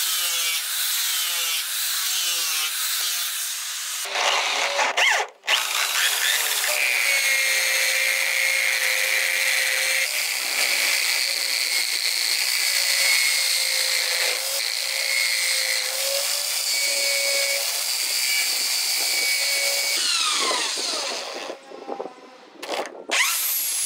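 Small electric motor turning a wooden wheel in a chuck, with a steady whine and the scraping of a hand tool cutting the spinning wood. The motor winds down near the end.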